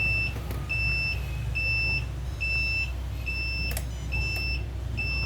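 An RC truck's electronic reversing beeper beeps evenly, a little faster than once a second, over the steady low hum of the model's motor.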